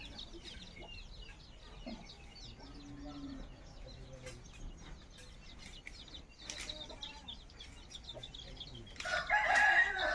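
A rooster crows once, loudly, near the end, a call of about a second. Small birds chirp throughout, with a few softer low calls from the poultry.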